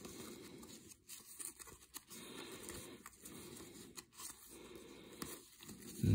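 Cardboard trading cards being slid one by one off a hand-held stack, a soft papery rustle with a light tick roughly once a second as each card is pushed across.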